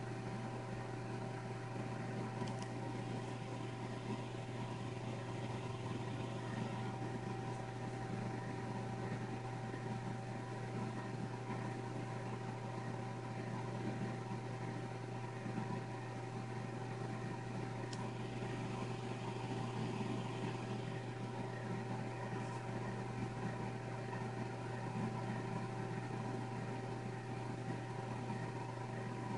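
Steady machine hum with a few unchanging tones, and two faint clicks, one about two and a half seconds in and one about eighteen seconds in.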